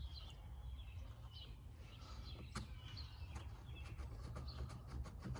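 Faint bird chirps repeating over a low steady background hum, with a few light clicks, one about halfway through and one near the end.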